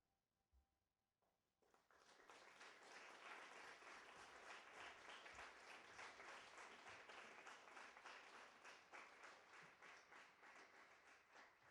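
Faint audience applause: many hands clapping, starting about a second and a half in and dying away near the end.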